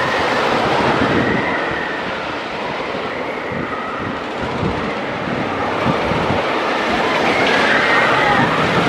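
Ghost Rider wooden roller coaster train running along its track: a loud, continuous rumble and rattle of the train on the wood structure.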